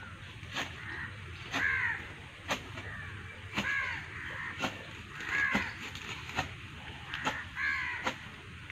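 A crow cawing four times, one harsh call about every two seconds, with sharp clicks between the calls.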